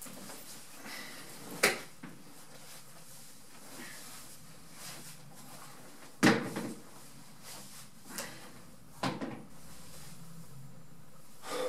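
A few sharp knocks and thumps from furniture being handled as a room is searched, the loudest a little past the middle, over faint room tone.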